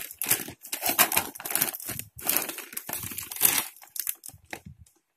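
Silver foil insulated lining of a thermal food delivery bag crinkling and rustling as hands open it and handle it, in irregular bursts that grow sparser near the end.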